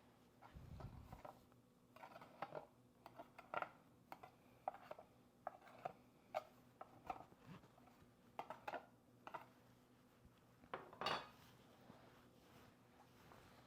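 A knife clinking and scraping against a loaf pan in scattered light knocks, with one louder knock about eleven seconds in, as a baked loaf is worked loose from a pan that may not have been greased.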